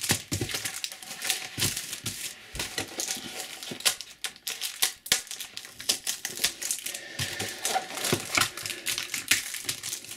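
Foil trading-card packets crinkling as they are pulled off a multipack one by one, an irregular run of sharp crackles and rustles.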